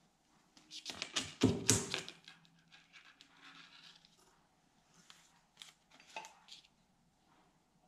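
Clattering and clinking as the metal power steering pump and its parts are handled and knocked about on a workbench: a dense burst of clicks about a second in, then a few lighter clicks later.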